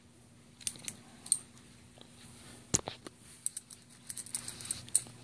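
Steel spider gears and shims from a center differential clinking and clicking as they are handled, with one sharper knock about two and a half seconds in and a run of quick light clinks near the end.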